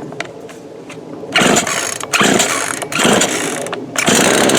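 Craftsman 42cc two-stroke chainsaw being pull-started: the recoil starter is yanked four times in quick succession, the engine turning over loudly with each pull, the last one longer.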